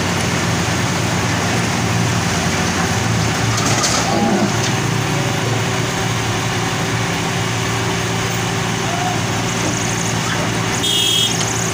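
Heavy diesel engines running steadily as a Doosan wheeled excavator works against a stuck truck. A short high-pitched beep sounds near the end.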